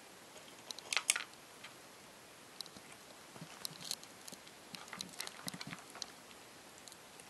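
A cat eating dry kibble from a metal bowl: scattered crisp clicks and crunches, with the loudest cluster about a second in and a busier run of them in the middle.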